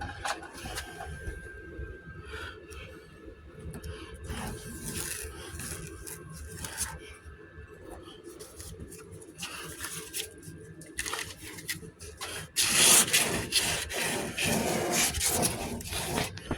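Sandpaper rubbing over body filler on a truck door panel in uneven strokes, getting louder and busier for the last few seconds.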